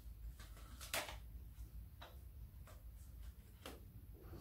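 A few faint, irregular metallic clicks, the loudest about a second in, from a wrench working the auxiliary belt tensioner on a 2.4 TDCi engine as the new, longer belt is tensioned.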